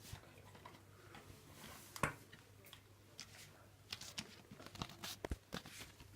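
Scattered light clicks, taps and rustles of small objects being handled, with the sharpest click about two seconds in and a run of clicks near the end.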